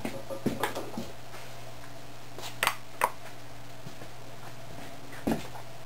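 A steady low hum under a few short, sharp clicks and knocks, the loudest two close together about two and a half to three seconds in and another near the end.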